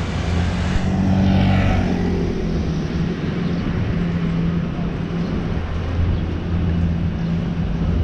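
Street traffic: a car passes about a second in, over a steady low engine hum.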